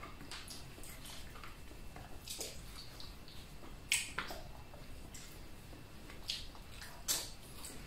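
Quiet eating sounds: scattered soft smacks and small clicks of people chewing and picking grilled squid and rice off plates by hand. The sharpest clicks come about four seconds in and again near the end.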